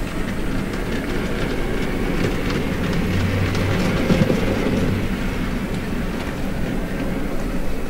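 Model trains running on the layout track: wheels rattling over the rails with a steady motor hum.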